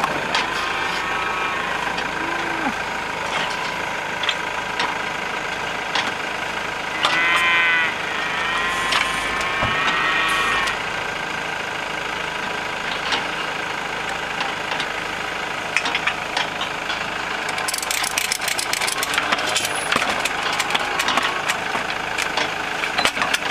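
A cow in a hoof-trimming crate bellows twice, about seven and nine seconds in, over a vehicle engine idling steadily. Sharp metal clanks from the crate come now and then, more of them near the end.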